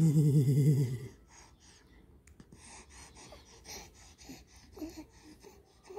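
A voice makes a loud, low, wavering hum or grunt lasting about a second, followed by soft breathing and a few faint short vocal sounds.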